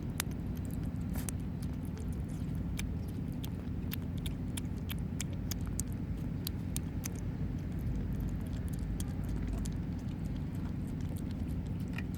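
Kittens eating from a dish: many small irregular wet clicks of chewing and lapping, over a steady low rumble.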